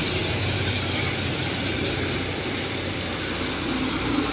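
Steady street traffic on a rain-wet road: engines running and tyres hissing as vehicles pass.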